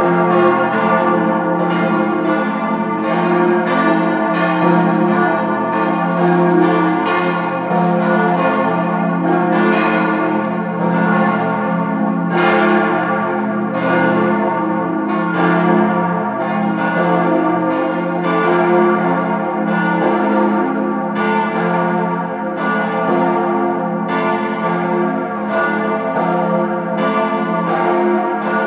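The four swinging church bells of the Rorschach Reformed church, cast by Rüetschi of Aarau in 1904 and tuned F° A° c' f' as an F-major chord, ringing together in full peal. The strokes overlap continuously over a lingering deep hum.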